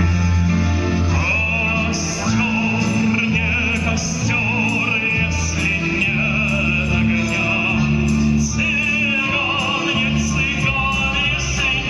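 Accordion playing a Russian Gypsy song, with sustained bass chords under a wavering melody. A man sings along.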